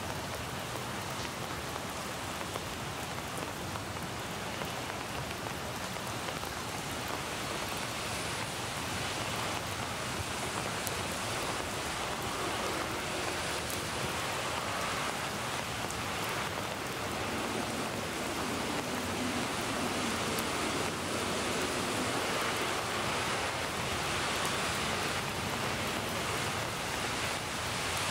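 Steady rain falling, an even patter of drops, a field recording mixed with a rain sound effect.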